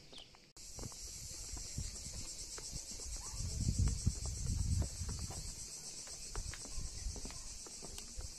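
A steady, dense chorus of insects, high-pitched with a fast shimmering pulse, starting abruptly about half a second in. A low rumble swells for a second or two in the middle, with scattered faint clicks.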